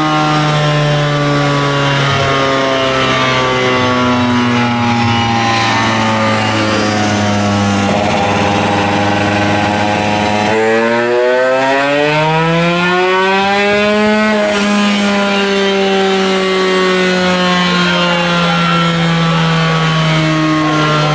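140cc two-stroke motorcycle engine with a racing exhaust, run at high revs on a chassis dyno. The pitch sags slowly, then climbs in a rising pull about halfway through and eases back down afterwards.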